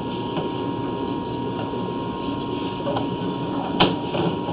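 Steady mechanical running noise with a faint high whine underneath, and a sharp click near the end.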